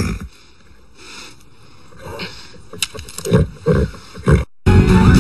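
Movie soundtrack: a few short, rough, low sounds over a quiet background, in a run of about four through the second half. Near the end the sound drops out for an instant and a guitar-driven music track starts at once, the sign of a channel change.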